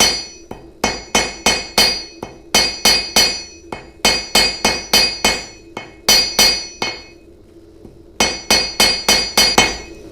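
Small ball peen hammer tapping a piece of 18 karat gold cold, each blow a sharp, ringing metallic strike, about three a second in runs, with a pause of over a second about two-thirds of the way in. The gold is being forged out to length and work-hardens as it is hammered cold.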